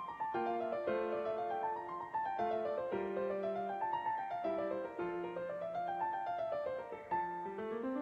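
Piano music: rising and falling runs of notes over held chords.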